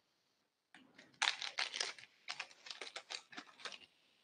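A quick run of light, sharp clicks and clatters of small hard objects, starting about a second in and stopping shortly before the end.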